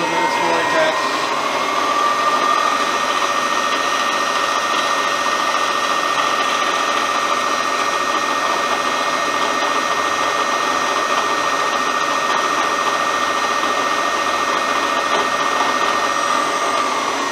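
Millport CNC milling machine's spindle spinning up with a rising whine over about two seconds, then running at a steady high pitch.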